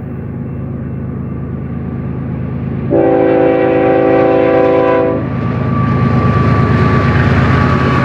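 BNSF diesel locomotives' air horn sounding one chord-like blast of about two seconds, a few seconds in. Under it the locomotives' engines drone steadily and grow louder as the three-unit lead of a tank car train draws near and reaches the camera.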